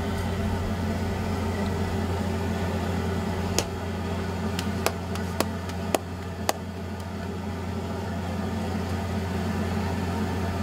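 A steady low mechanical hum runs throughout. Between about three and a half and six and a half seconds in come six or so sharp slaps, as bhatura dough is patted flat between the palms.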